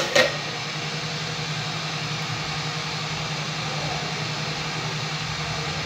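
Hot air rework station blower running steadily at high airflow, a constant rushing hiss over a low motor hum, with two sharp clicks right at the start.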